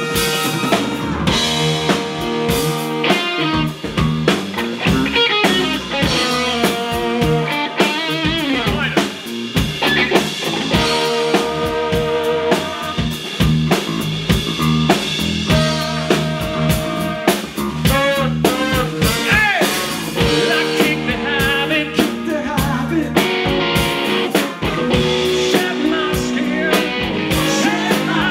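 Live band playing an instrumental passage: electric guitar, electric bass and drum kit with a trumpet and saxophone horn section, without vocals.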